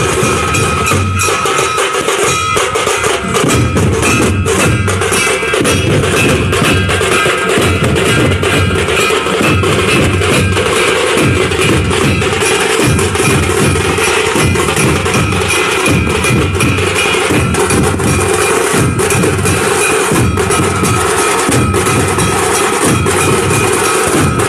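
Dhol-tasha troupe playing: large barrel-shaped dhol drums beaten in a steady, driving rhythm, loud and dense with sharper percussion layered over the drums.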